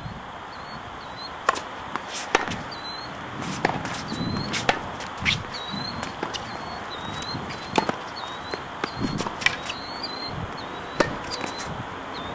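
Tennis balls struck by rackets and bouncing on an outdoor hard court: sharp, separate pops at an irregular pace, about one every second, over light wind.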